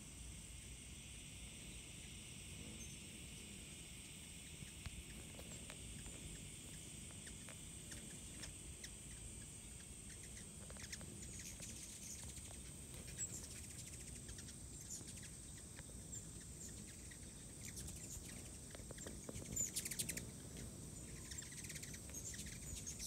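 Faint outdoor summer insect chorus with a steady, unbroken high-pitched whine, plus a lower insect buzz in the first half. Short bird chirps and ticks come scattered through it, with a quick run of them about twenty seconds in.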